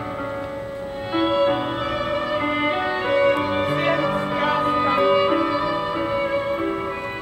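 Music led by a violin melody over held string notes, growing louder about a second in.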